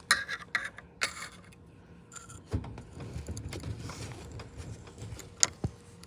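A metal pick scraping and clicking against the steering column's lock plate and retaining ring, with sharp metallic clicks in the first second, some handling knocks in the middle, and two more clicks near the end.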